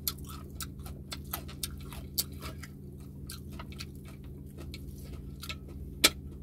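Crispy pata (deep-fried pork leg) crackling in a run of short, sharp crunches and clicks as the crisp skin and meat are torn apart by hand and chewed, with one loud snap near the end. A steady low hum runs underneath.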